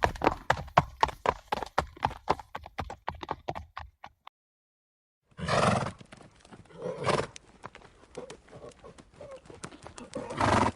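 A horse's galloping hoofbeats, a fast even run of hoof strikes that fades away over the first four seconds. After a second's silence, the horse snorts three times, loud blasts of breath through the nostrils, with faint hoof knocks in between.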